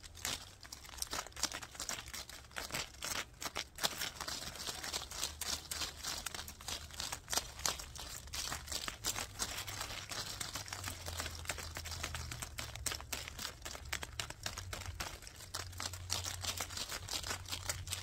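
Leaves and twigs of a bush rubbing and scraping right against the microphone: a dense, irregular crackling rustle full of sharp clicks, over a low rumble.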